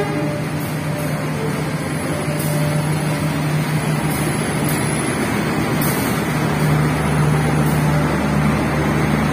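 Diesel passenger train arriving: a steady low engine hum with the rush and rumble of carriages rolling along the track, growing slightly louder.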